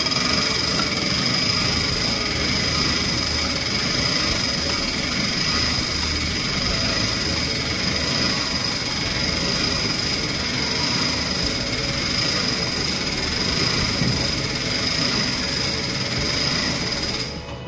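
Church tower clock being wound by hand crank: the gear train and winding ratchet give a steady mechanical whir with a thin high whine, stopping abruptly near the end.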